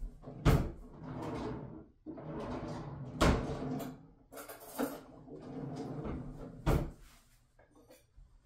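Kitchen cupboard doors and drawers being opened and shut while someone rummages, with three sharp knocks, about half a second in, about three seconds in and near seven seconds, and handling and rustling noise between them.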